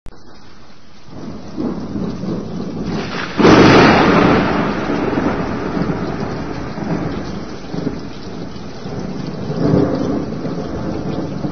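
Thunderstorm: steady rain, with a sudden loud clap of thunder about three and a half seconds in that rumbles away over several seconds, and a second, weaker roll of thunder near the end.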